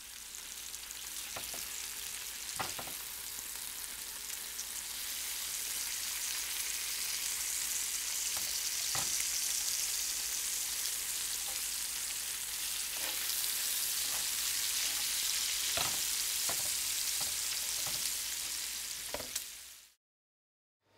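Food frying in hot oil in a pan: a steady sizzle with scattered crackling pops, cutting off suddenly near the end.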